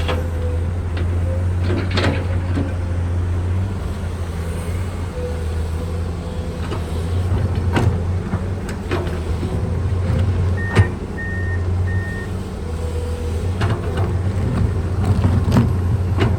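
Komatsu PC210 excavator's diesel engine running steadily, with scattered sharp clanks from the bucket and machine as it digs. Three short beeps sound about eleven seconds in.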